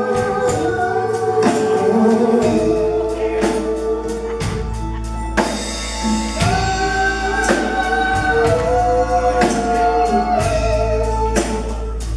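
Live rock band performing: drums keep a steady beat under voices holding long sung notes.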